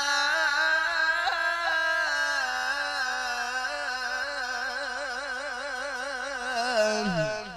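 A male qari's voice reciting the Quran in melodic tilawah style, holding one long melismatic note in a high register with rapid wavering ornaments. About seven seconds in, it glides down sharply and stops, leaving an echo from the amplified sound system.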